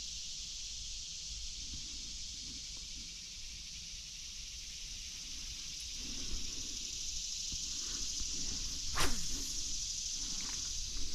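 Steady high-pitched outdoor hiss. Footsteps and rustling on a creek bank start about six seconds in, and a single sharp swish comes about nine seconds in.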